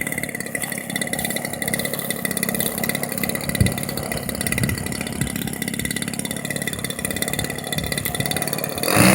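30cc AGM two-stroke gas engine of a large radio-controlled model airplane running steadily with a fast, even buzz. There is a short thump a few seconds in, and a louder surge just before the end.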